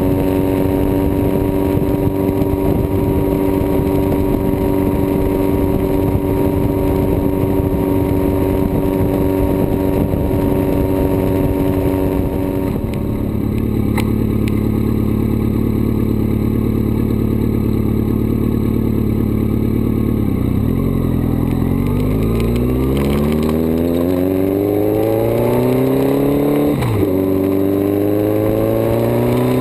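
Motorcycle engine cruising at a steady speed, then running lower for several seconds. It then accelerates with rising pitch, with gear changes near the end.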